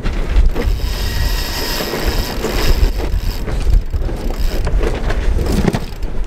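Sailing yacht under way in rough water: steady wind buffeting and rumbling with water rushing past, and scattered knocks and rattles.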